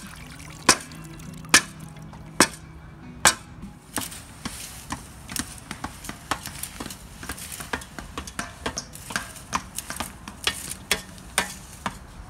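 Flat steel shovel blade slapping and scraping packed dirt, shaping and smoothing a dirt jump. A sharp slap about every 0.8 seconds at first, then quicker, lighter strikes and scrapes from about four seconds in.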